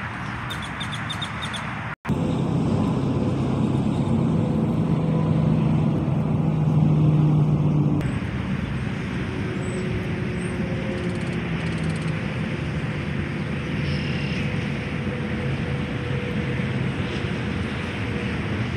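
Steady freeway traffic noise, with a low vehicle drone that is louder for a few seconds near the start.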